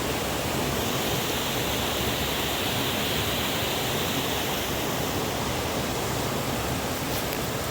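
Steady rushing of flowing river water tumbling over a cascade, a constant even hiss.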